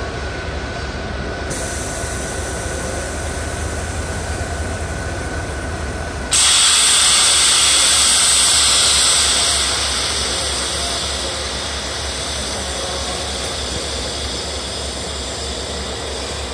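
CFR Class 40 (LE 060 EA) electric locomotive moving slowly with a steady low hum. About six seconds in, a loud air hiss starts suddenly and eases off over the following few seconds.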